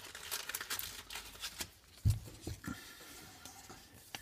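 Trading cards being handled: a run of light clicks and rustles of card stock and packaging, with one soft thump about two seconds in.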